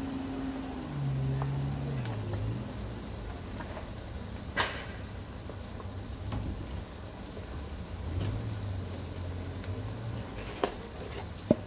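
Kitchen handling sounds: one sharp click about halfway, the loudest thing, and two lighter clicks near the end, over a low steady background drone. The clicks come as a plastic spice jar is set aside after chili powder is shaken into a pot of fried onions.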